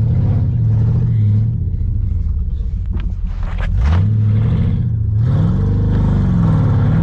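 Pickup truck engine running under load while it tows another pickup through deep snow on a strap. It revs up near the start, eases off, revs up again about four seconds in, then rises and falls.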